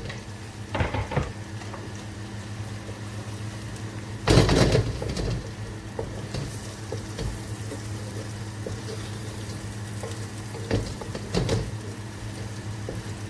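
Chopped onion and garlic frying in butter in a pan, a steady sizzle over a low hum, with a spoon stirring and knocking against the pan a few times, loudest about four seconds in.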